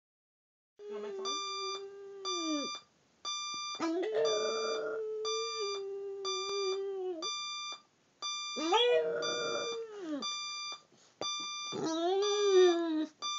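A Boston terrier howling along with an electronic alarm clock's repeated beeping. There are four long howls with short breaks between them, the last one wavering in pitch, over high beeps about twice a second.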